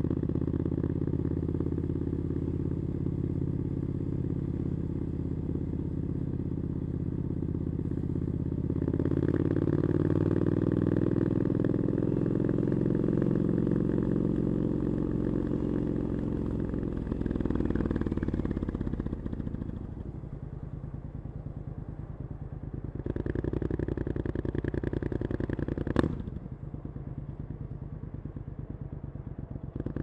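Triumph Scrambler 900 parallel-twin motorcycle with aftermarket Arrow exhaust, under way. The engine pitch climbs for several seconds as the bike accelerates, then drops away as it slows to a low, quieter run. A short louder stretch follows, ending in a single sharp click about three-quarters of the way through.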